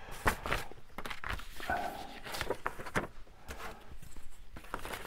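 Paper and card being handled and folded on a desk: irregular light taps and rustles.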